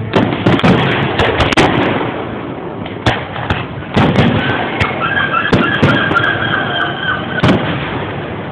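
Aerial fireworks shells bursting overhead in a dense string of sharp bangs, heaviest in the first two seconds, then more spaced out. A high wavering tone sounds between about five and seven seconds in.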